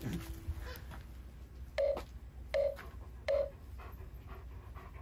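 Three short, identical electronic pops, evenly spaced about three-quarters of a second apart: a video-editing sound effect.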